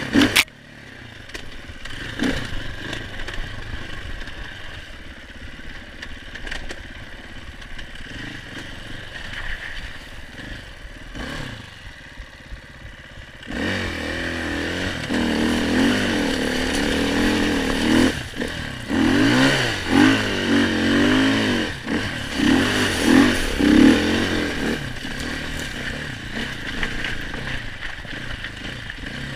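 KTM 500 EXC enduro motorcycle's single-cylinder four-stroke engine. It runs low and uneven at first, with a few knocks and clatters. About halfway through it revs up and down repeatedly and louder for around ten seconds, then settles.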